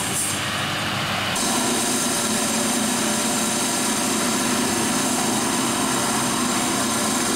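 Tractor engine running steadily, growing louder about a second and a half in as it sets off on the lap of honour carrying the podium.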